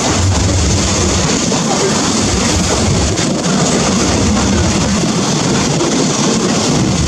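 Electric multiple-unit passenger train running past on the track, a steady rumble of wheels and running gear on the rails.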